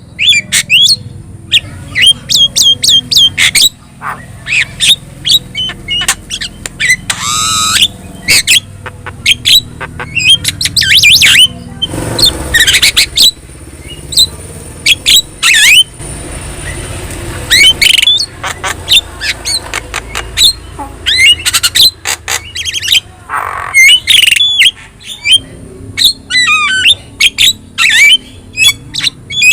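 Javan myna singing vigorously: a fast, varied string of short sharp calls, whistling glides and quick chattering notes, one after another with hardly a pause.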